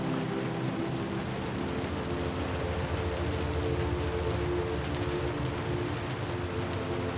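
Steady rain falling, with individual drops ticking through the even hiss. Underneath sit a few low steady tones that shift slightly.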